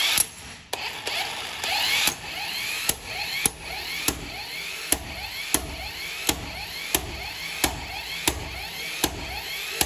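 12V car impact wrench running under load, its hammer striking about one and a half times a second, with the motor whine rising between blows.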